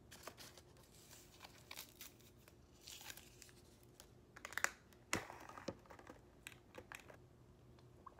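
Faint crinkling and tearing of a paper straw wrapper being handled, with scattered light clicks and a sharper knock about five seconds in.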